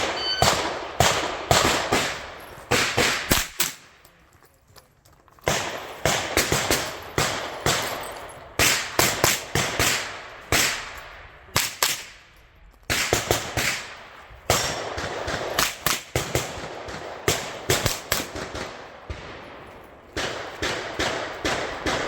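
Handgun fired in fast strings of shots during a timed course of fire, each shot cracking with a short echo, broken by a couple of brief pauses.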